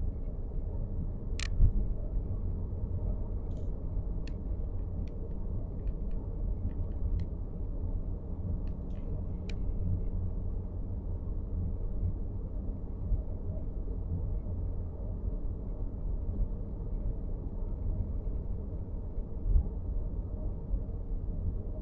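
Steady road rumble inside the cabin of a moving Nissan X-Trail e-POWER, with scattered short ticks and creaks from the dashboard, an abnormal rattle, coming irregularly and mostly in the first half.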